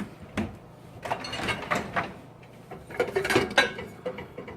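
A series of knocks and clatters from a dishwasher's door and racks being handled, with dishes knocking against each other, in two busier bursts about a second in and about three seconds in.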